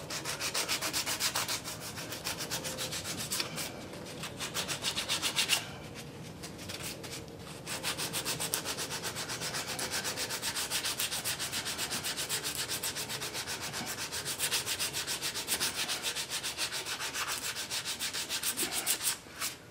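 Sandpaper rubbed by hand along the edge of a homemade water-cooled Briggs & Stratton engine casting, in quick back-and-forth rasping strokes, rounding off the edge. The strokes ease off for about two seconds some six seconds in, then resume steadily.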